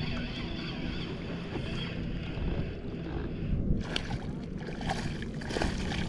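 Steady wind and water noise around a kayak. A few short, sudden sounds come about four seconds in and again near the end while a hooked trout is being brought in.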